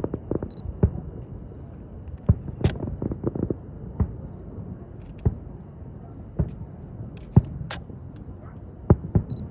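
Fireworks going off: irregular sharp bangs, a dozen or so, with a quick run of pops about two to three seconds in.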